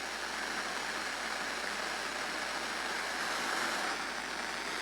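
Steady hiss of FM radio static from a weak or untuned signal.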